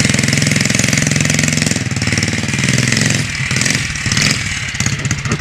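Small single-cylinder lawn-edger engine fitted to a homemade mini chopper, idling through a makeshift exhaust with a fast, even beat. About three seconds in its speed sags and it runs slower and more unevenly.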